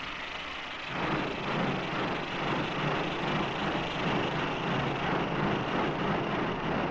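Steam locomotive, LNER A1 No. 4472 Flying Scotsman, letting off steam: a steady rushing hiss with a low rumble, growing louder about a second in.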